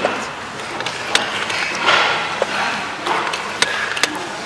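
Wooden chess pieces set down on a wooden board and a digital chess clock's buttons pressed during quick play: several separate sharp clicks and knocks.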